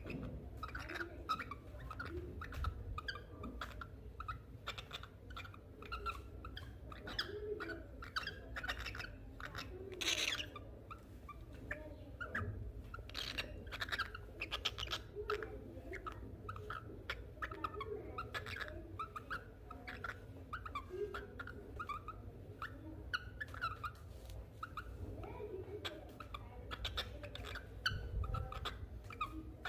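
Pet cockatiel chattering: a continuous run of short chirps and whistled calls, with a louder, longer call about ten seconds in.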